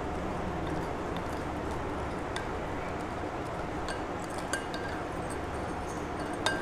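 A metal spoon stirring a wet instant-coffee and powdered-sugar mixture in a glass bowl, with a few light clinks of the spoon against the glass, over a steady background hum.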